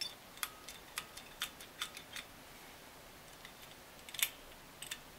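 Small parts of a Singer sewing machine foot controller clicking and tapping as they are handled and fitted into the controller housing: about five sharp clicks in the first two seconds, then a louder click a little after four seconds and two light ones just before the end.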